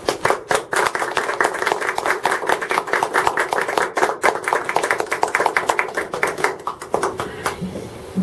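A small group of people clapping, many hands at once, thinning out and stopping near the end.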